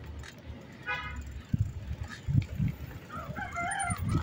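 Domestic fowl calling: a short call about a second in, then a longer crow that rises and falls near the end, over scattered low thumps.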